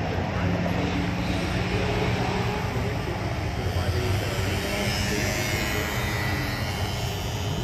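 Engines of two cars racing down a drag strip, heard from far behind as they run away from the starting line, a steady mixed rumble.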